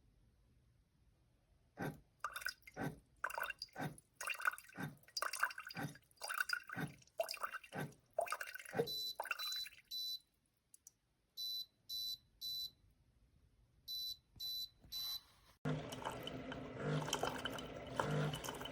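Single-serve coffee maker spurting and dripping irregularly, then beeping in three short groups of high electronic beeps. Background music starts suddenly near the end.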